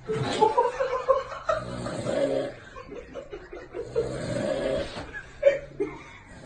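A person snoring loudly: rough, buzzing breaths that come back about every two and a half seconds, with snorting, laugh-like sounds between them.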